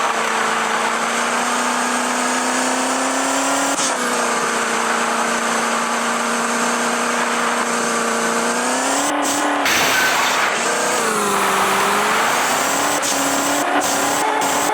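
Maruti Suzuki Eeco van's four-cylinder engine running at high, steady revs under a constant rushing noise. About nine seconds in the revs climb, drop sharply, then rise and fall again as it is driven hard.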